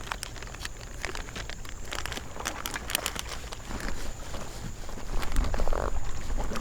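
Crinkling and rustling of a plastic soft-bait packet with scattered small clicks, as a plastic worm is taken out to re-rig a drop-shot line.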